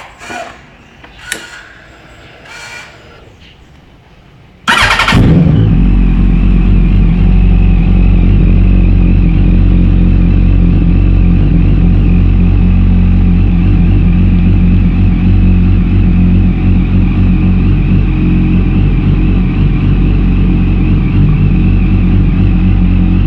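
A few short knocks, then about five seconds in a Yamaha YZF-R1's inline-four engine starts abruptly and settles into a steady, loud idle through a Two Brothers Racing aftermarket exhaust.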